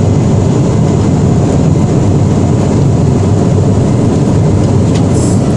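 Airbus airliner on its landing roll, a loud, steady, deep roar of the jet engines and the rollout heard from the cockpit.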